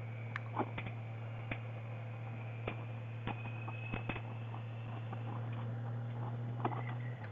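Steady low hum of an idling motorcycle engine, with scattered light clicks and ticks; right at the end the hum changes and drops away.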